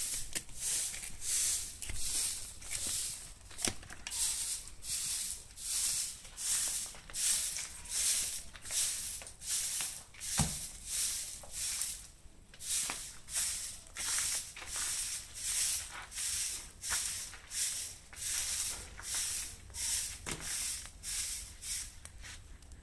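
A stiff stick broom sweeping dirt ground strewn with dry leaves. Its swishing strokes come steadily at about one a second, with a single low knock about ten seconds in.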